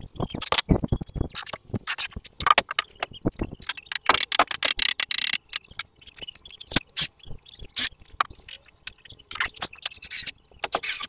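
Timber being worked in a carpentry shop: an irregular run of scrapes and knocks, with a longer scrape about four seconds in lasting a second or so.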